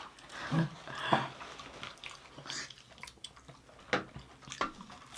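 Close-up chewing and biting of food, with several short crunchy clicks and a few brief mouth noises.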